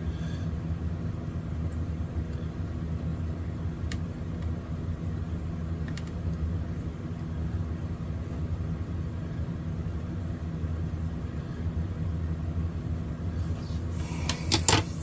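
Steady low background hum, with a few faint single ticks and a short rattle of clicks near the end.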